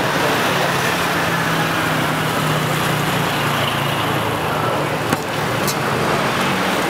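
Road traffic passing close by: a steady wash of traffic noise with a vehicle engine's low hum for the first few seconds, and a sharp click about five seconds in.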